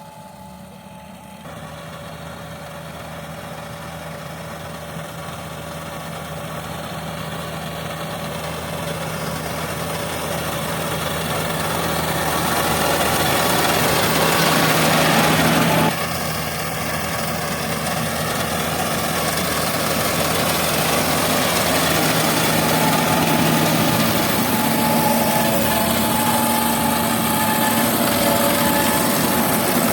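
Yanmar combine harvester's engine running steadily with a constant hum, growing louder over the first fifteen seconds. The level drops suddenly about sixteen seconds in, then the engine stays loud and steady.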